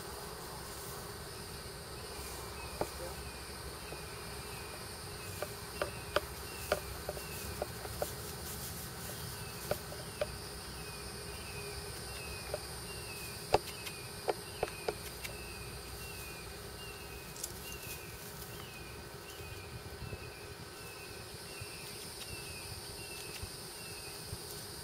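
Insects chirping and buzzing: a steady high drone with a short falling chirp repeated about twice a second. Scattered sharp knocks come through, most of them between about 5 and 15 seconds in.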